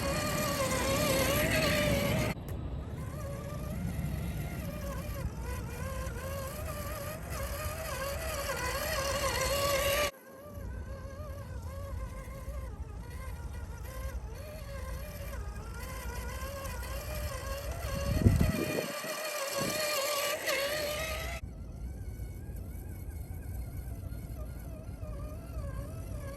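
RC4WD Gelande II D90 scale crawler's electric motor and gearbox whining, the pitch wavering up and down with the throttle, over the rumble of the tyres on sand. Abrupt changes come at a few points. A loud low thump about two-thirds of the way through is the loudest sound.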